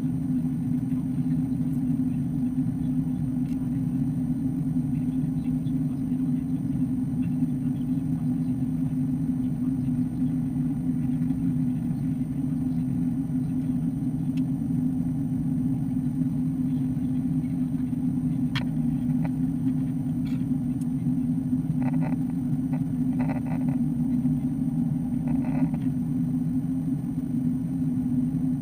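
Airbus A330-200 passenger cabin in flight: a steady low drone of engine and airflow noise carried through the fuselage, even and unbroken.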